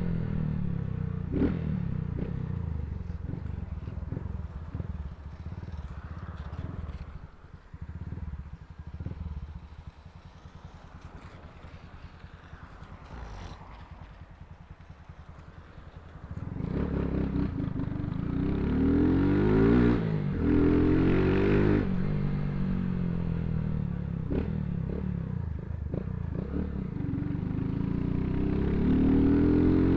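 Motorcycle engine and exhaust on the move, running softly and low from about a quarter of the way in, then opening up a little past halfway and revving repeatedly, the pitch climbing and dropping as it goes through the gears.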